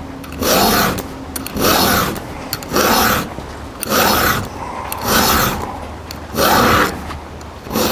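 A round chainsaw file rasping across a chain's cutter teeth in steady, even strokes, about one a second, seven in all: freehand sharpening of a saw chain.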